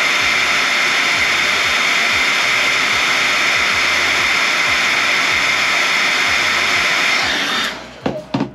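Hand-held hair dryer running steadily, a rush of air with a faint whine over it. It switches off near the end, followed by a couple of light knocks.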